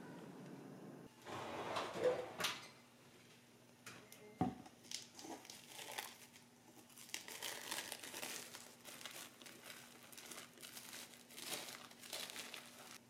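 Crinkling and rustling of wrapping being handled in irregular bursts, with a single knock about four seconds in.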